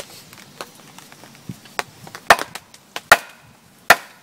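Wooden baton striking the back of a hatchet set in a bone-dry, hard log, batoning it along a natural crack to split it: a few light taps, then three loud, sharp knocks under a second apart.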